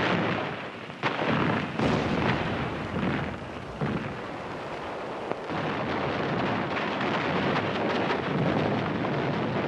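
Battle sound of artillery and gunfire: a steady noisy din with sharp blasts about one, two, three and four seconds in.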